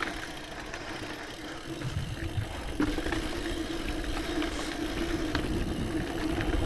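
Scott Genius full-suspension mountain bike rolling down a dirt singletrack: tyre and trail noise with scattered light rattling clicks, and a steady hum that sets in about three seconds in.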